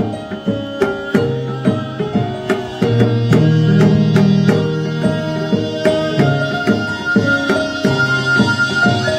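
Korean traditional (gugak) ensemble music: regular drum strokes over sustained melodic tones that move step by step, with a high held note coming in about six seconds in.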